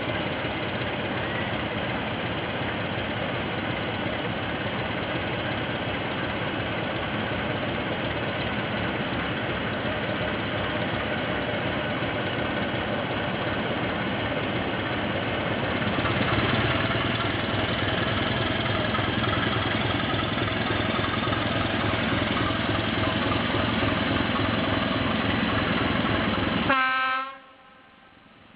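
Diesel locomotive approaching slowly at the head of a freight train, its engine running steadily and getting louder about halfway through. Near the end the noise cuts off suddenly and a short horn note sounds.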